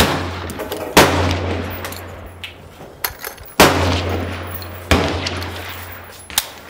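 About five gunshots on an outdoor range, each trailing off in a long echo off the surrounding hills; the loudest come about a second in and again at about three and a half seconds, with sharper, shorter reports near five and six and a half seconds.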